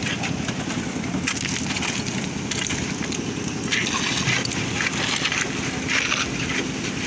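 Wet concrete being tipped and scraped across a reinforced roof slab: repeated gritty scraping bursts. Under them runs the steady drone of the concrete mixer machine.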